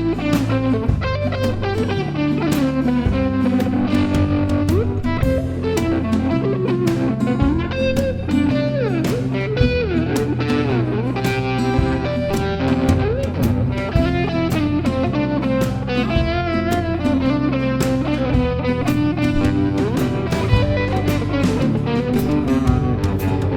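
Instrumental passage of a rock song: electric guitars play melodic lines with bends over bass guitar and drums.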